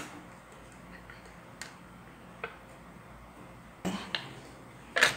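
Foil seal being peeled off a Magnum ice cream tub: a few faint ticks, then crinkling crackles about four seconds in and a louder crackle near the end.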